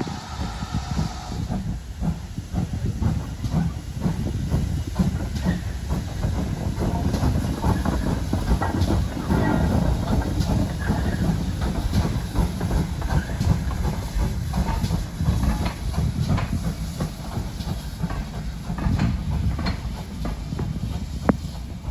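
GWR Large Prairie 2-6-2 tank engine 4144 steaming past with a coach: hissing steam and exhaust over the rumble of the train and a run of irregular clicks and clanks from wheels on rail joints, with one sharp clank near the end.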